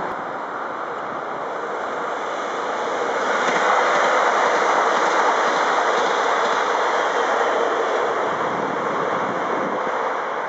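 An NS Sprinter electric commuter train passing by, its wheel and rail noise swelling to a peak about four seconds in and then fading.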